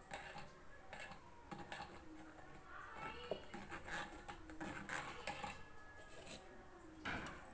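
Metal spoon stirring and scraping in a stainless-steel mesh tea strainer while grape juice is strained through it, making faint, irregular clicks and scrapes.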